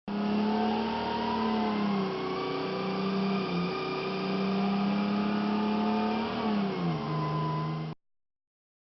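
Fire truck engine running with a steady drone; its pitch drops about six and a half seconds in, and the sound cuts off abruptly about eight seconds in.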